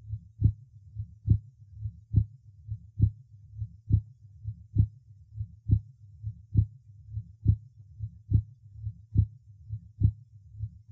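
Human heart sounds recorded over the aorta in a patient with hypertension: a steady rhythm of paired beats, a little over one heartbeat a second. The second heart sound is markedly louder, an accentuated second sound over the aorta.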